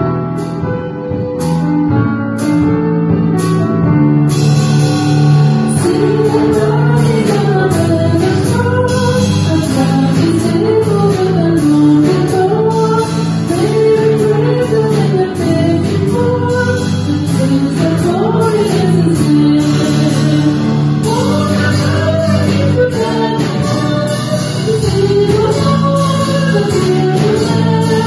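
Live worship band music: acoustic guitar, keyboard and drum kit playing a calypso-style Christmas carol, with a few spaced hits in the opening seconds before the full band comes in about four seconds in. A woman sings the verse from about six seconds in.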